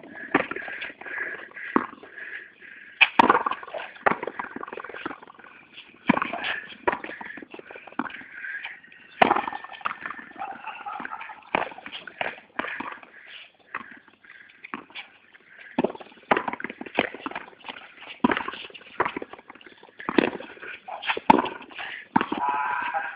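Frontenis rally: the ball struck by stringed rackets and slapping off the fronton wall and the court floor, a long run of irregular sharp knocks.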